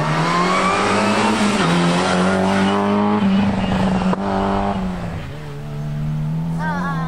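Rally car engine revving hard under acceleration, its pitch climbing and stepping down at gear changes. A single sharp crack comes about four seconds in, then the engine settles to a steadier, lower note.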